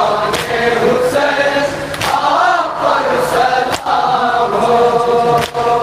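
A group of men chanting a nauha, a Shia mourning lament, in unison through a microphone. Sharp slaps of matam, chest-beating in time with the lament, come about once a second.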